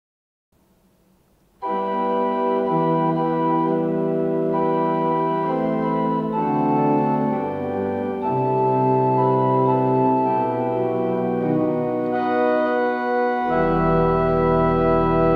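Church pipe organ playing a hymn tune in sustained chords, starting about a second and a half in. Deep pedal bass notes join near the end.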